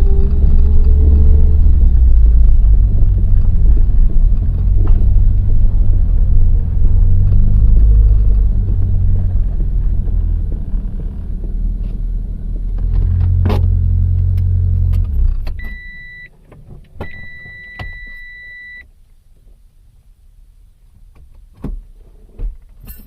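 A DSM car's engine running with the rattle its owner can't identify, then switched off about 15 s in. After it stops, a warning chime sounds twice, a short beep then a longer one, and a few light clicks follow near the end.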